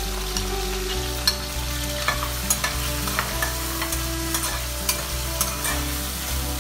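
Metal spatula scraping and knocking against a kadai as chopped tomatoes and spices are stirred and fried in sizzling oil, with irregular sharp clicks of the spatula on the pan. Steady low notes of a background music track run underneath.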